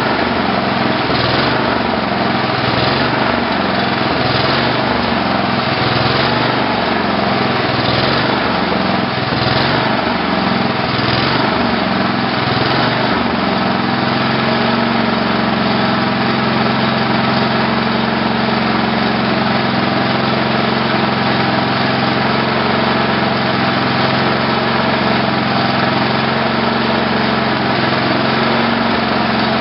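Tecumseh HH120 single-cylinder garden-tractor engine running on a test run of its newly fitted GM LS2 coil and crank-sensor ignition. Its speed wavers with a regular pulse for the first dozen or so seconds, then settles to a steady run.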